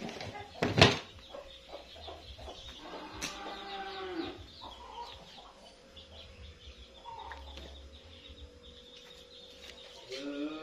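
Domestic chickens clucking, with a loud knock about a second in and a long drawn-out call starting near the end.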